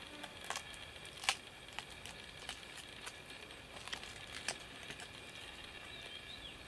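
Faint background hiss with a few scattered sharp clicks or snaps, the loudest about a second in, and a short faint chirp near the end.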